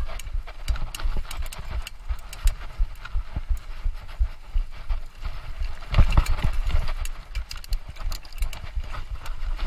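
Mountain bike rattling and knocking over rough ground: a quick, irregular clatter of small knocks over a low rumble, louder for a moment about six seconds in.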